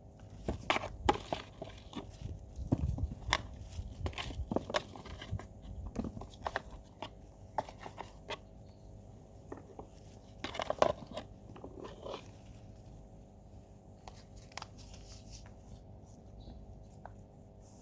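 Irregular crunching and clicking of hands handling things, with no steady rhythm. It is busiest in the first few seconds, thins out, and comes back in a cluster about ten seconds in.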